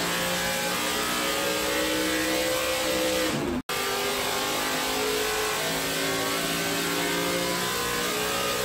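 Chevrolet SB2 small-block V8 race engine running on an engine dyno, its pitch climbing steadily as it revs up through a pull. The sound cuts out for an instant a little over three seconds in, then climbs again.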